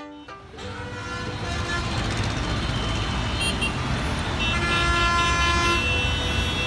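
Road traffic noise fading in, with vehicle horns: a short toot about three and a half seconds in, then a longer honk of several tones together from about four and a half to six seconds.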